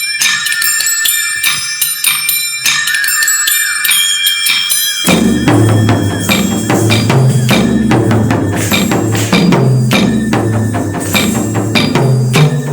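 Anklet bells jingling in a quick rhythm on their own, high and bright with no bass. About five seconds in, a full instrumental music track with a heavy drum beat and percussion comes in under them.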